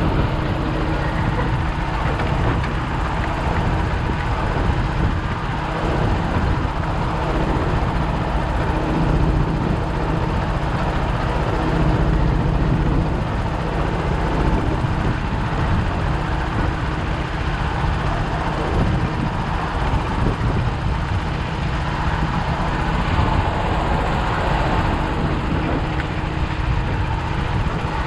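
Steady vehicle rumble with a faint hum, running without a break.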